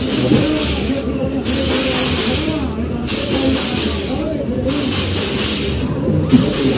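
Spinning fairground arm ride running: a whooshing hiss that swells and breaks off about every second and a half as the cars sweep past, over loud fairground music.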